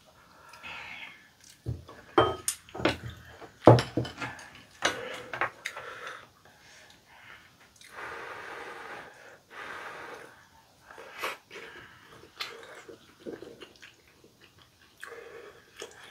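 Two people eating chewy stir-fried rice cakes (tteokbokki), chewing and breathing hard from the spicy food. Sharp clicks of a ladle and chopsticks against the bowls come in the first few seconds, the loudest about four seconds in.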